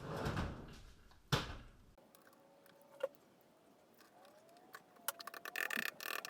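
Metal offcuts being handled and set up in a bench vise: a sharp knock about a second in, a single click a little later, then a quick run of clicks and rattles near the end.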